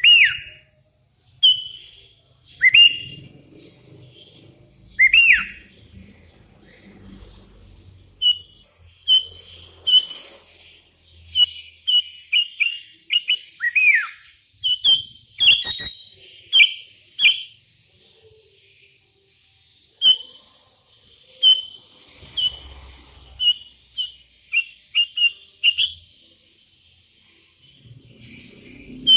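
Sooty-headed bulbul singing: a busy run of short, clear whistled notes, some sliding sharply down in pitch, repeated in quick irregular bursts.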